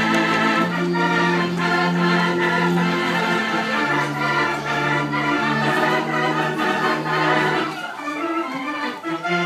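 Theatre organ playing music: sustained chords over held bass notes that change a couple of times, turning to shorter, choppier notes near the end.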